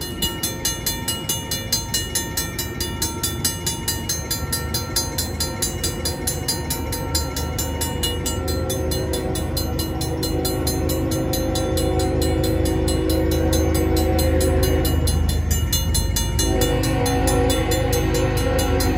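A Safetran mechanical crossing bell ringing fast and evenly. From about halfway in, the horn of the approaching freight locomotive sounds and grows louder, getting stronger near the end, over the rising rumble of the train.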